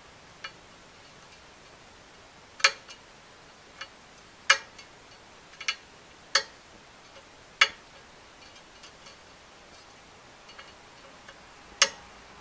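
Sharp metallic clicks of a screwdriver tip against the needle rollers and race of a needle bearing as the last needle is forced into place: about seven irregular clicks with fainter ticks between.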